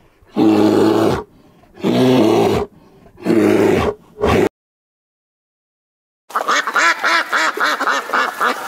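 A black bear calling three times, each low call under a second long, followed by a brief fourth call. After about two seconds of quiet, mallard ducks quack in a rapid run of quacks.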